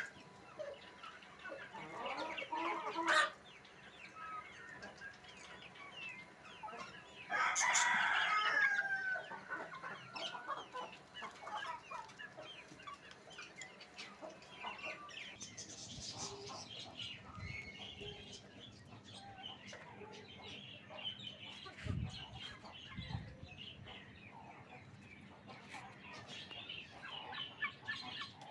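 Aseel chickens clucking and calling in a coop, many short calls scattered throughout. A louder, drawn-out call lasting about a second and a half rises above them about a quarter of the way in.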